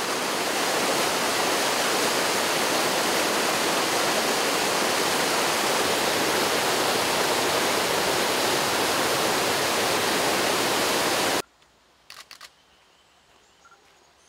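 Mountain stream rushing over rocky rapids, a loud, steady whitewater roar that cuts off suddenly about eleven seconds in. After it, a couple of faint clicks, typical of a camera shutter.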